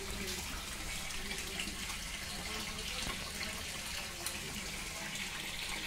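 Water running steadily into a concrete fish tank.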